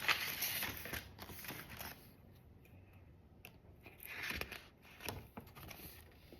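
Paper rustling and crinkling as an opened credit card mailer envelope and its paper insert are handled. It is busiest over the first two seconds, then falls to a few light rustles and clicks, with one more brief rustle about four seconds in.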